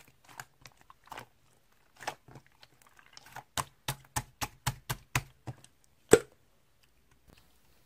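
A series of irregular taps and clicks close to the microphone, clustered in the middle, with one sharper, louder click a little after six seconds in.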